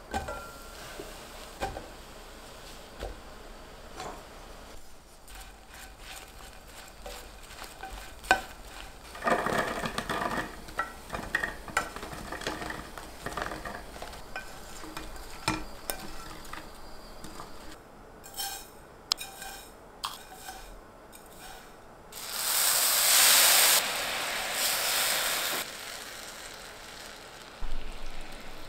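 Kitchen handling sounds: scattered light knocks and clinks of utensils, and a short rustling burst about a third of the way in. About three-quarters through comes the loudest part, a few seconds of gritty scraping as brown sugar and water are stirred in a pan with a silicone spatula.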